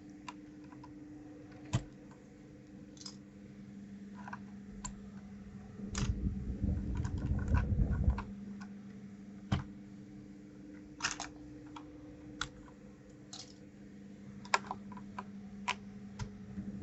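Scattered plastic clicks of keycaps being handled, pulled and pressed onto a 1st Player DK 5.0 keyboard, with a louder stretch of rubbing, handling noise from about six to eight seconds in. A steady low hum runs underneath.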